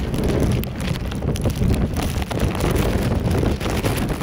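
Boeing 747-400 freighter's four turbofan engines rumbling as it lands on a wet runway, with strong wind buffeting the microphone.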